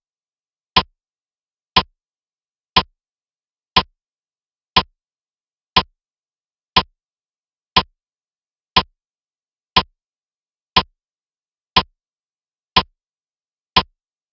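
Clock-tick sound effect of a quiz countdown timer, ticking once a second, fourteen sharp ticks with silence between them.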